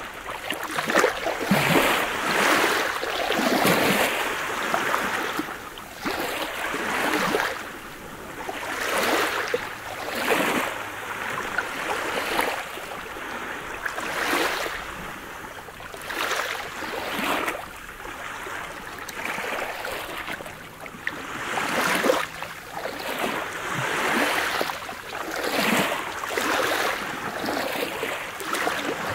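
Small sea waves breaking and washing up over a pebble beach, a fresh surge of hiss every two seconds or so.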